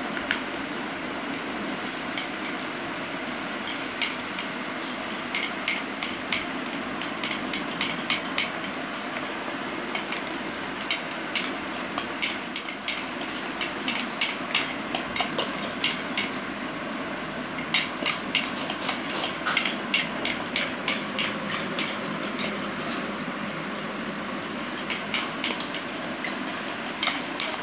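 Metal spoons clinking and scraping against ceramic mugs while crushed Oreo cookies are mashed and stirred into milk. The clinks come fast and in runs, with a short pause a little past halfway.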